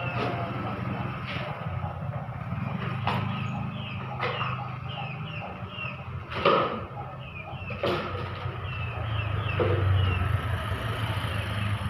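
Workshop sounds over a steady low hum: scattered knocks and taps of boards being handled on a wooden frame, the loudest about six and a half seconds in. Short high chirps repeat throughout.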